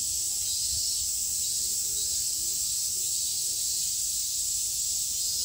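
A dense chorus of summer cicadas: a steady, high, shrill hiss with no break.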